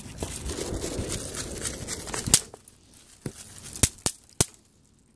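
Crinkling rustle of paper-wrapped bang snaps being handled, then one loud sharp snap a little over two seconds in and three smaller sharp clicks near the end, as the novelty snaps pop on the wooden deck.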